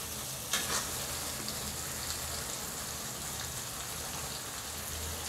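Chicken pieces, cooked and nearly dry, sizzling steadily in oil in a metal kadai as chicken chukka finishes dry-frying without water, with one brief scrape of the ladle about half a second in.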